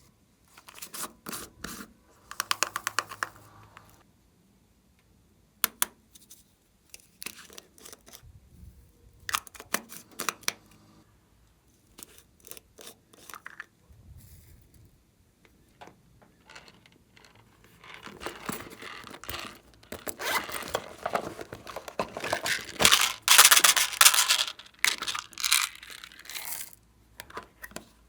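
Glossy slime being squished and stretched by hand, giving bursts of sticky crackling and popping clicks, short with pauses at first, then a long dense run that is loudest near the end.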